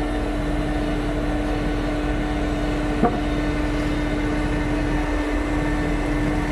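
KATO NK-3600 crane's engine running steadily with a constant hum. One short sharp click about three seconds in.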